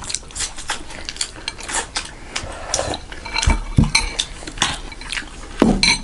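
Spoons and other eating utensils clinking and scraping against bowls and dishes while eating soup, a rapid run of short clicks with a few duller knocks.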